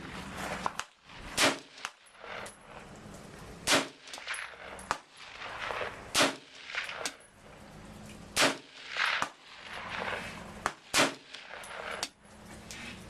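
AR-15 rifle fired in single shots at a slow, steady pace: five loud shots about two and a half seconds apart, with fainter sharp clicks between them.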